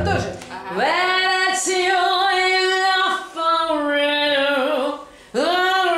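A woman singing sustained notes in three phrases, the first and last scooping up into their pitch, with short breaths between them.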